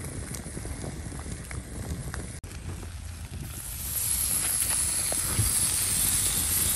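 Wood campfire crackling under a grill grate with small scattered pops; about four seconds in a steak goes onto the hot grate and a steady sizzle rises.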